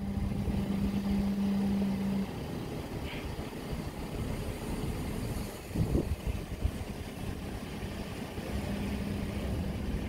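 Wind buffeting the microphone over the running diesel engine of a road-rail excavator on the track. A steady hum stops a little over two seconds in, and there is a single knock about six seconds in.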